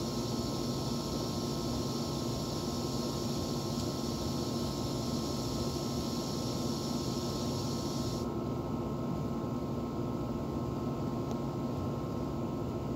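Central air-conditioner condenser unit running steadily, an even hum of compressor and fan with a few fixed tones. A higher hiss over it stops abruptly about eight seconds in.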